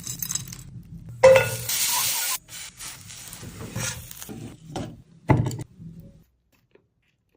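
Cooking sounds: metal utensils clinking and scraping, with a sizzle, in several separate bursts. The loudest comes about a second in, and everything stops about six seconds in.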